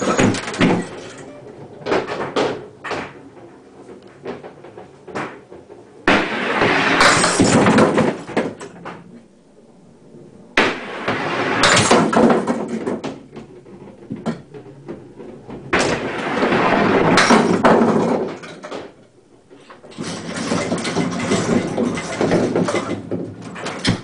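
Candlepins on a string pinsetter clattering as they are knocked down and hauled back up on their strings over pulleys. There are four loud bursts of wooden knocking and rattling, each a couple of seconds long, with scattered smaller knocks between them.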